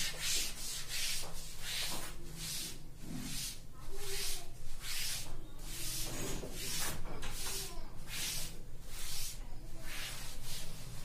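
A cloth duster wiping chalk off a blackboard in quick back-and-forth strokes, a dry rubbing swish at about two strokes a second.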